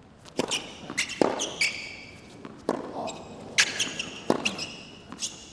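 Tennis rally on a hard court: a series of sharp racket strikes and ball bounces about a second apart, with sneakers squeaking on the court surface between shots.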